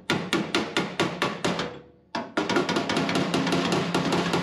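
Hammer rapidly striking the ledge of a steel floor patch panel to knock it back, about five or six blows a second, with a short pause about two seconds in before the hammering resumes. The sheet metal rings under the blows.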